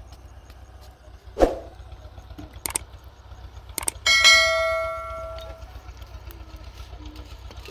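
Sound effects from a subscribe-button animation: a sharp thump about a second and a half in, a couple of short clicks, then a bright notification-bell ding about four seconds in that rings out and fades over about a second and a half.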